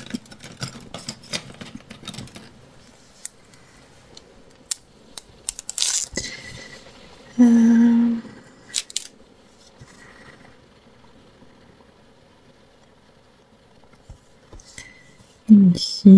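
Metal tweezers clicking and tapping as self-adhesive rhinestones are picked off their backing sheet and pressed onto a paper journal page: many small sharp clicks, thickest in the first few seconds and again about five to six seconds in. A short steady hum sounds about seven seconds in, and a brief hummed vocal sound near the end is the loudest part.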